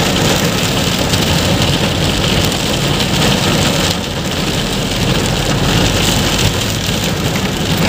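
Heavy rain falling steadily, with a low vehicle rumble underneath.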